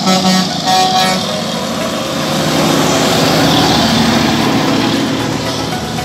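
Kenworth tractor-trailer sounding two short air-horn blasts, then its diesel engine and tyres passing close by, loudest about four seconds in and then fading.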